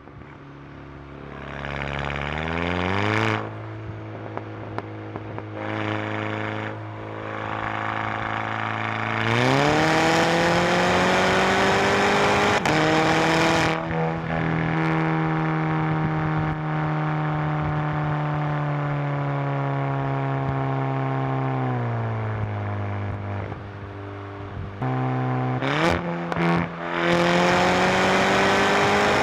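2011 Volkswagen GTI Mk6's turbocharged 2.0-litre four-cylinder, heard at the exhaust tip through a Unitronics downpipe, resonator delete and ungutted stock rear muffler. It starts low, climbs briefly about two seconds in, then revs up about nine seconds in and holds steady high revs for some twelve seconds before falling back. Near the end come a few short blips and a final climb.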